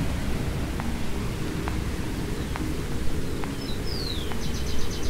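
Birds calling over a steady low rushing background: a falling whistle and then a quick run of repeated high notes near the end. A faint tick repeats about once a second.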